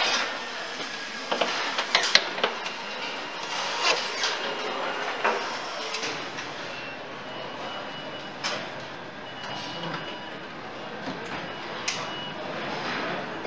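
Car assembly-line floor noise: a steady hall background with scattered clicks, knocks and clanks of parts and tools being handled. About six seconds in it changes abruptly and turns duller.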